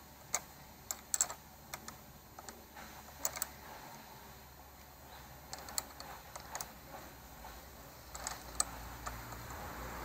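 Small ratchet wrench loosening the bolt on a car battery's negative terminal clamp: faint, irregular metal clicks in short groups.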